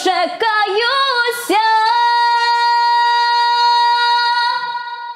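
A girl singing a Ukrainian folk song solo, a cappella. She ends the last line on one long held note that fades away near the end.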